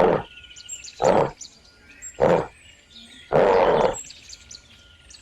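An animal growling in four short bursts about a second apart, the last one longer, most likely a bear growl sound effect. Faint bird chirps run behind it.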